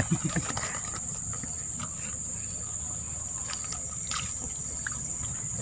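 Insects chirring in one steady high-pitched drone, with a few faint ticks over it.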